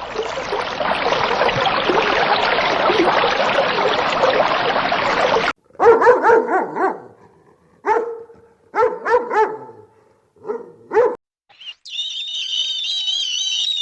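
A dog barking, a series of short separate barks from about five and a half seconds in to about eleven seconds. Before the barks comes a dense, steady noise that cuts off suddenly, and near the end a high, wavering chirping.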